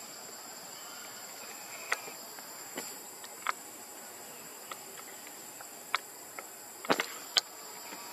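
Steady high-pitched drone of insects, with about eight sharp clicks scattered through it, the loudest two close together near the end.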